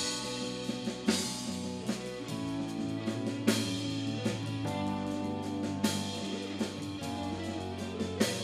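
Live rock band playing: electric guitar, bass guitar and drum kit, with a cymbal crash about every two and a half seconds.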